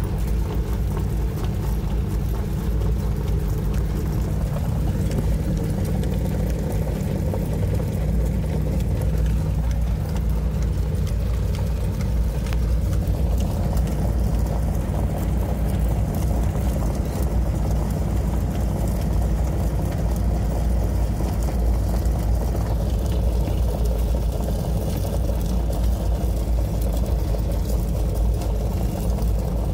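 Engine and road noise of the mobile starting-gate car, heard from inside its cabin as it drives along the track: a steady low rumble.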